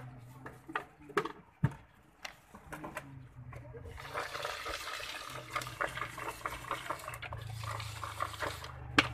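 Puffed rice and jhal muri ingredients shaken in a red plastic mug held closed by hand, a dense swishing rattle that starts about four seconds in. Before that, a few scattered taps and clicks as ingredients go into the mug.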